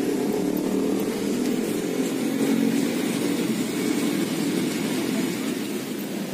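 Toy model train running along its track with a steady running noise.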